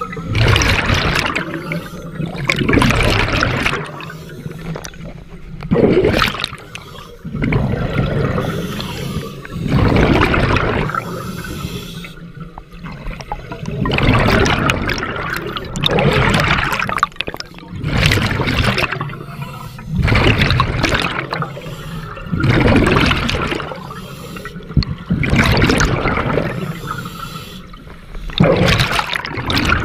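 Scuba diver breathing through a regulator underwater: a gurgling burst of exhaled bubbles every two to four seconds, with quieter stretches between breaths.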